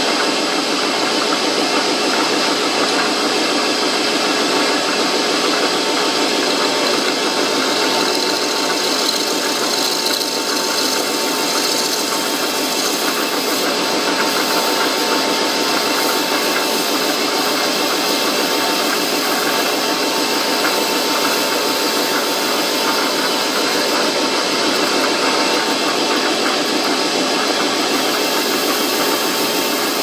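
Metal lathe running steadily, its cutting tool taking a cut in the face of a spinning brass workpiece. The sound is a constant mechanical whir with a faint steady whine.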